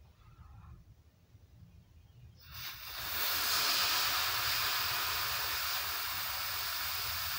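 Air hissing out through the valve of an 8 oz butane canister as it is bled during refilling; it comes in over about a second, starting about two and a half seconds in, then holds steady.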